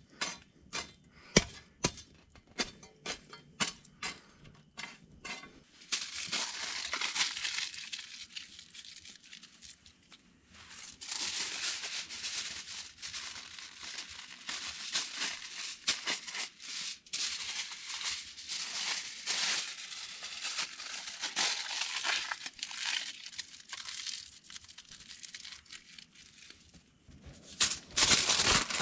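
Aluminium foil being torn off and crinkled as it is folded around potatoes, in bursts with short pauses, loudest near the end. The first few seconds are a run of sharp clicks and knocks.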